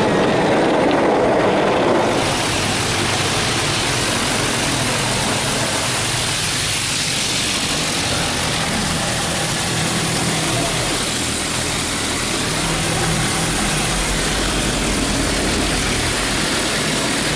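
MacNeil tunnel car wash working on the vehicle, heard from inside the cabin: a steady rush of water and wash equipment against the car over a low hum. About two seconds in, the rush turns brighter and hissier.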